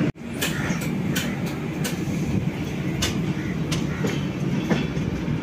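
Train running along the track: a steady rumble with wheels clicking over rail joints about once every two-thirds of a second.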